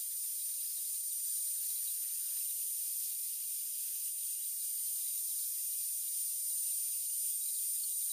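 Handheld angle grinder with a flap disc running steadily: an even high whine over a hiss.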